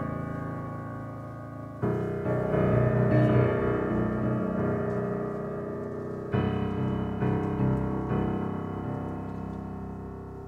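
Keyboard music: full sustained chords, fresh ones struck about two seconds in and again about six seconds in, each fading slowly.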